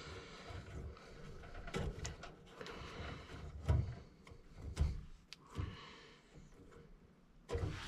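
Hands unwrapping and handling low-voltage thermostat wire inside a furnace's control compartment: faint rustling with scattered light clicks and knocks.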